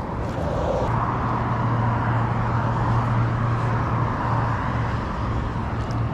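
Road traffic on the causeway passing by: a steady rumble with tyre noise that swells slightly about a second in, then eases off.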